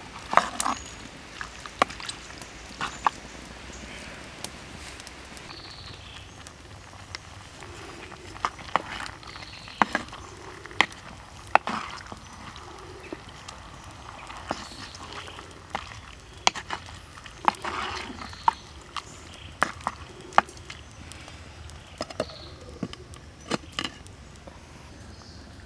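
A wooden ladle stirring pork intestines in a clay pot, with irregular sharp knocks of wood against the pot's rim and sides. Near the end the clay lid is set on the pot.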